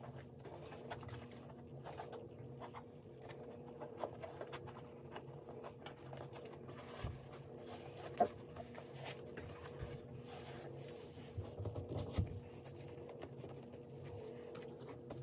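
Soft rustling and scattered light taps of hands pulling on and adjusting a pair of high-top basketball sneakers, over a steady low hum. One sharper tap comes about eight seconds in.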